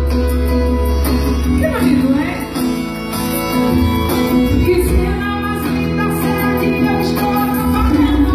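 Music with singing played loud through a Fiat Uno's custom car sound system. Heavy deep bass drops out about five seconds in and returns near the end.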